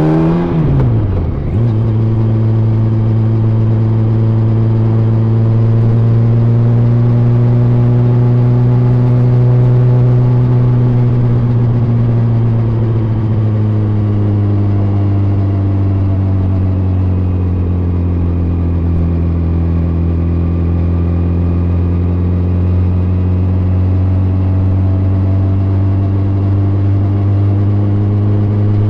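Yamaha FZ1's inline-four engine under way: the revs drop sharply at a gear change about a second in, then the engine holds a steady cruising note that eases down a little midway and levels off. Heard through layers of jackets from a phone in the rider's pocket.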